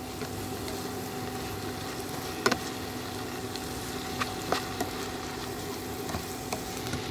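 Sweet leaf (pak wan) stir-frying in oyster and soy sauce in a nonstick pan: a steady sizzle, with a few sharp clicks of a plastic spatula against the pan, the loudest about two and a half seconds in. A faint steady hum runs underneath.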